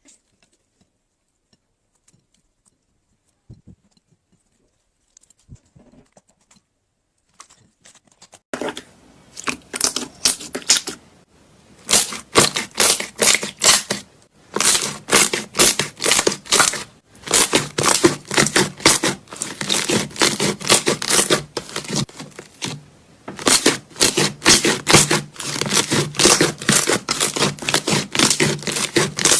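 Slime being squeezed and poked by hand, giving runs of rapid clicks and pops in bursts with short pauses between them. Nearly silent for the first eight seconds or so.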